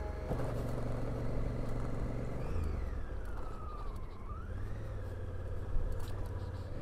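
Honda Africa Twin's 998 cc parallel-twin engine running at a steady cruise on a gravel road, with road and wind noise. In the middle a high tone slides down and back up for about two seconds.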